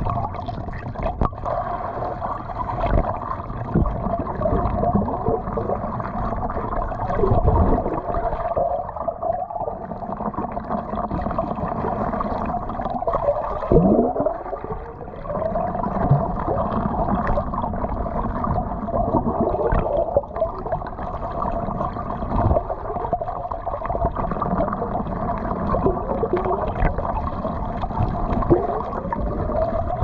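Heard underwater: muffled splashing, bubbling and gurgling from mallard ducks paddling and dabbling head-down for food just overhead, with now and then a falling bubbly sweep.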